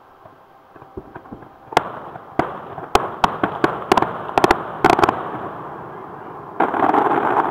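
Distant aerial fireworks: a quickening string of sharp shell bursts, then about two-thirds of the way in a sudden, dense volley of overlapping bangs.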